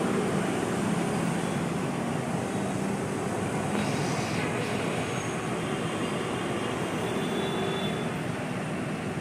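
Steady road traffic noise from a busy street.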